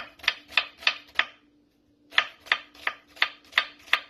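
Kitchen knife chopping a white onion finely on a wooden cutting board: a steady run of knife strikes about three a second, stopping for under a second about a third of the way in, then starting again.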